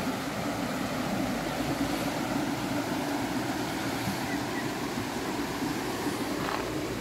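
Steady rush of river water at a weir with a fish pass.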